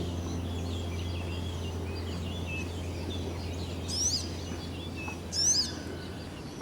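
Birds chirping and twittering, with two loud, harsh, downward-sweeping calls about four and five and a half seconds in. A steady low hum runs underneath.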